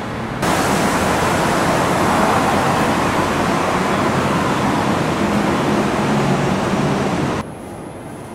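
A single-deck SBS Transit city bus drives up close, its engine and tyres making a loud, steady rush with a low hum underneath. The sound cuts in abruptly about half a second in and cuts off about a second before the end, leaving quieter street background.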